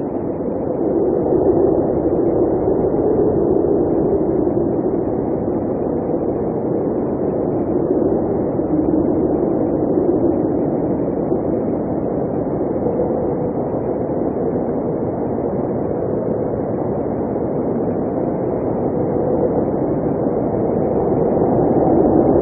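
Blizzard wind blowing steadily in a low rush that swells and eases slowly.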